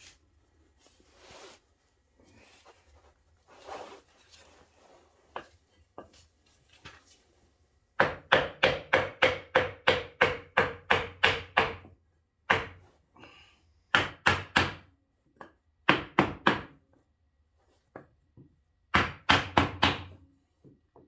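Hammer blows on a bar held against an ATV's front brake drum: a fast run of about four or five sharp knocks a second, lasting about four seconds, then several shorter bursts of knocks. Before the hammering there are faint knocks and scrapes as the drum is handled onto the hub.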